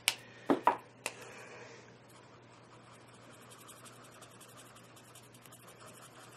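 A Prismacolor marker being picked up and uncapped: a few sharp clicks and knocks in the first second. Then the marker's tip scratches faintly on the coloring-book paper.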